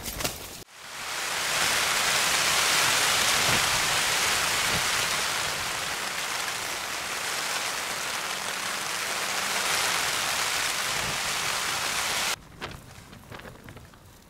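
Rain falling on a tent: a dense, steady hiss of drops on the fabric that swells up in the first second and cuts off abruptly near the end.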